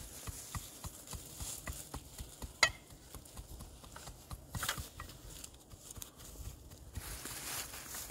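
Shovel scraping and pushing loose dirt and gravel in short strokes, with scattered small ticks and one sharp click about two and a half seconds in.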